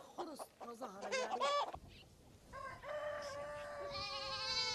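Rooster crowing: one long call, about two and a half seconds, starting midway and slowly falling in pitch.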